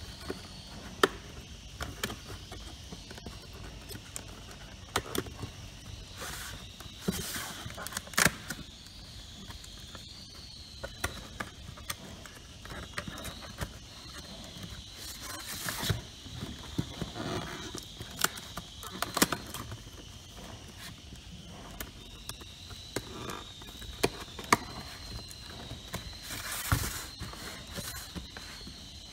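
Cardboard display box being assembled by hand, its sides folded and tabs pushed into slots: irregular sharp taps and clicks of card, with a few short scraping, rustling passes of card against card.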